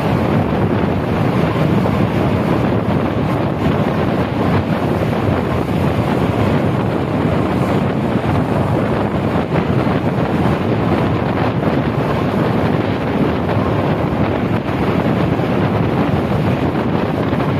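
Steady wind noise buffeting the microphone at the side window of a moving tour bus, over the bus's road noise on a wet road. The sound holds level throughout.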